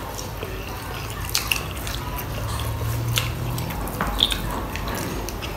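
Close-up eating sounds of two people eating Maggi instant noodles and steamed momos by hand: slurping noodles and wet chewing, with scattered short wet clicks and smacks.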